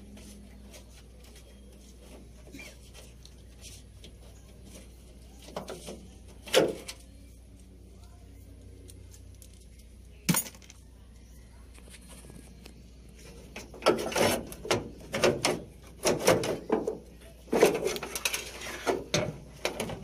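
Metal tools and door-lock parts clinking and knocking during hand work on a truck door lock: a few scattered clicks, a sharp metallic knock about ten seconds in, then a quick run of clattering in the last six seconds.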